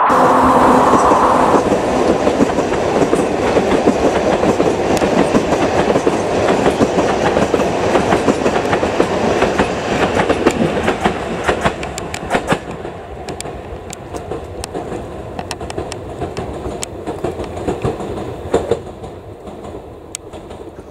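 Narrow-gauge train's wheels clattering over rail joints as its carriages run past, a dense clickety-clack that fades over the second half as the train moves away. A steady whine sounds over it and stops after about a second and a half.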